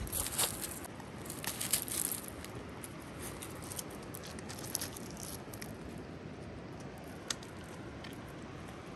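Loose river pebbles clattering and crunching as dogs move about and nose into them, a busy run of small clicks in the first couple of seconds, then only the odd click, one sharp one near the end, over a steady soft hiss.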